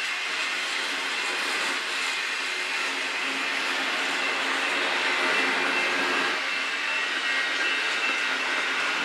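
Double-stack container train's well cars rolling past: a steady rumble and hiss of steel wheels on rail, with faint high steady tones on top.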